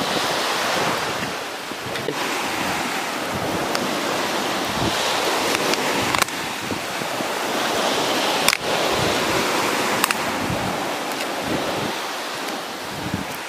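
Surf washing on a beach, with wind buffeting the microphone; a few sharp clicks stand out over it.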